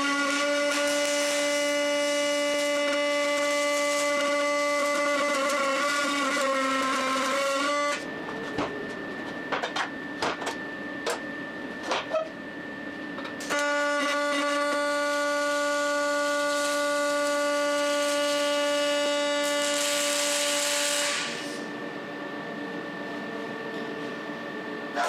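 Electric power tool motor running at steady speed, its pitch sagging briefly just before it stops about 8 seconds in. A few sharp metal clicks and knocks follow. The motor then runs again for about seven seconds and winds down.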